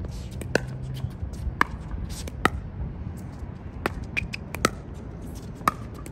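Pickleball paddles hitting a hollow plastic pickleball back and forth in a rally: sharp pops roughly once a second, six in all, with fainter clicks between them.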